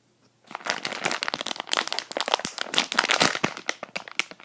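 Squishy toy packaging being handled, crinkling and crackling in quick dense bursts that start about half a second in.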